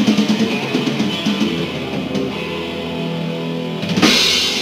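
Live rock band playing an instrumental passage: distorted electric guitars over drums, with quick picked notes at first, then held notes, and a loud cymbal crash about four seconds in.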